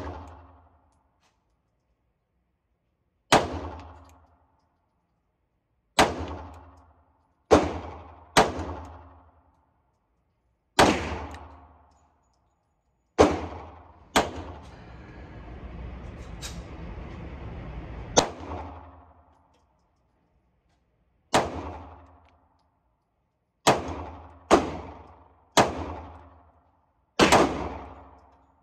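Pistol shots at an indoor range, about thirteen single shots at uneven intervals, some in quick pairs, each followed by a short echo off the walls. A few seconds of steady noise fill the gap between two shots in the middle.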